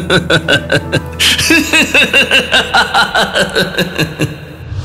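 A man's long, mocking 'ha-ha-ha' laugh, quick pulses about six a second in two runs, sinking lower before it stops near the end, over background music.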